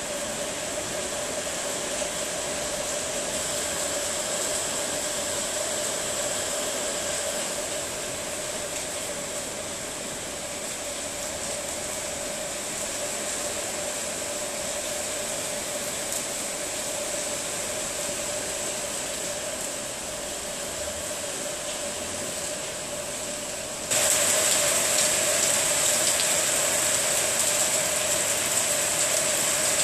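Heavy rain pouring down in a steady, dense hiss. Late on it suddenly grows louder and brighter.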